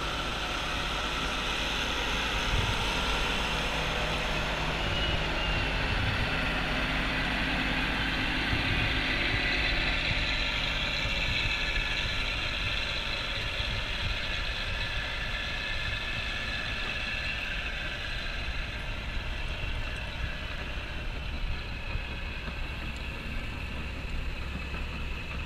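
Timberjack log skidder's diesel engine running steadily under load as it drags a large log across soft ground.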